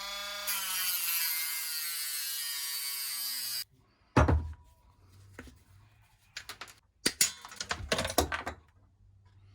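A small power tool's motor whirs with a hiss, its pitch slowly dropping until it stops suddenly about three and a half seconds in. It is working the broken reflector off the bike. Then come scattered clicks and knocks of parts being handled.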